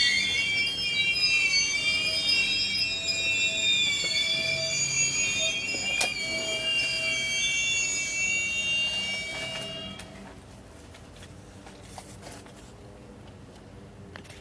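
Steel wheels of a freight train's covered hopper cars squealing under braking as the train slows: a high, wavering metallic squeal of several pitches at once that dies away about ten seconds in as the train comes to a stop.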